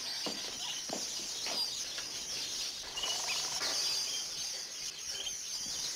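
Many small caged birds chirping and twittering together, a dense chorus of short high chirps and whistles.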